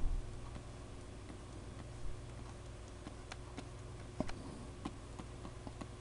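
Faint, scattered clicks and taps of a stylus on a pen tablet as a square wave is drawn, with a louder tap right at the start, over a low steady hum.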